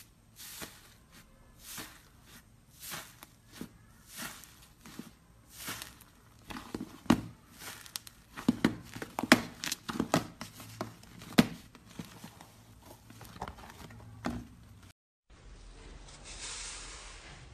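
Hand working fluffy slime. First come soft swishes about once a second as the hand strokes it, then a dense run of crackling, popping squelches with sharp snaps as the fingers squish into it. After a sudden break, a softer hiss as a small charm is pressed into another slime near the end.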